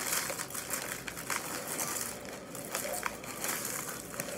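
Frosted Flakes with marshmallows pouring from the box's plastic bag liner into a plastic container: a steady crackling rattle of many small clicks as the flakes land, with the bag liner crinkling.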